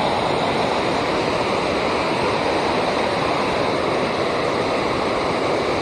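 Steady rush of water pouring over a river dam.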